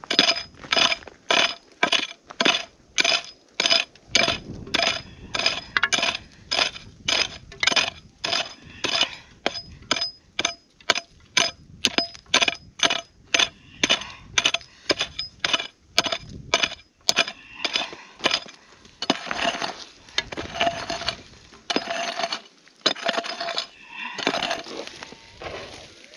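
A prospecting pick striking hard, stony ground in a steady run of sharp blows, about two a second, to dig out a gold target found with a metal detector. Near the end it slows into looser scraping in the dirt.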